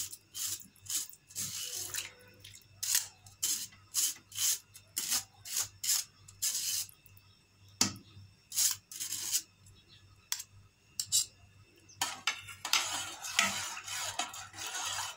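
Metal spoon scraping and tapping against a stainless steel mesh strainer, knocking soaked sago pearls into a pot, in quick strokes about two a second. About twelve seconds in it changes to a continuous clatter of a spoon stirring in the pot.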